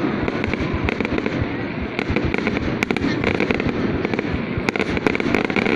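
Fireworks display going off in a continuous barrage: dense crackling with many sharp pops and bangs throughout.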